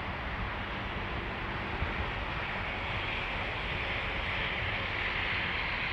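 Steady outdoor background noise: a constant low rumble and hiss that swells a little in the middle, with no distinct events.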